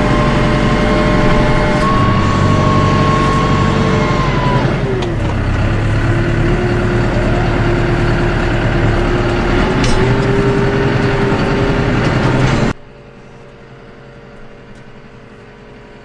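Landini Powermondial 115 tractor's engine running under load while ploughing, loud from inside the cab. Its speed drops about five seconds in and picks up a little later. Near the end the sound cuts suddenly to a much quieter, steady engine hum.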